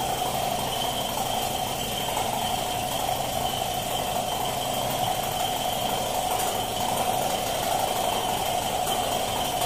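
Compressed-air paint spraying: a gravity-feed spray gun spraying paint, with its air compressor running. A steady hiss with a constant hum and a higher whine that does not change.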